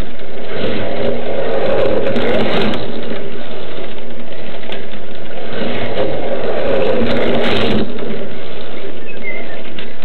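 1:32 scale slot cars running on a plastic track: the whine of small electric motors and gears, swelling as cars come past twice, about a second in and again around six seconds in.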